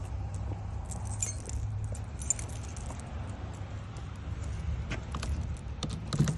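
Metal car keys jangling and clicking as a freshly cut key is handled and tried in the car's lock, in short clusters about a second in and again near the end, over a steady low rumble.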